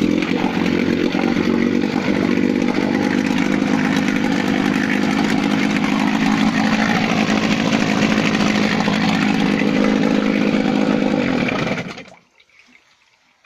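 1980 Johnson 15 HP Sea Horse short-shaft two-stroke outboard catching right at the start and running steadily at a fast, even beat with its lower unit in a test barrel, then shut off about twelve seconds in.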